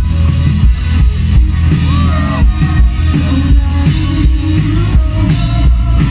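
Live rock band playing loud amplified music: a drum kit beating steadily over electric bass and guitar.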